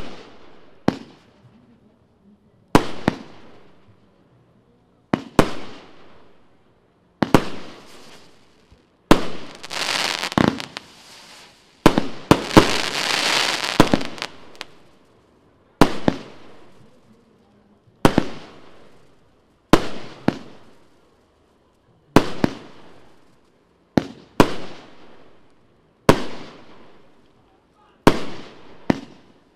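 Golden Age fireworks from Evolution Fireworks firing shot after shot: a sharp bang about every two seconds, often in quick pairs, each dying away over about a second. From about 9 to 14 seconds in, a stretch of dense crackling.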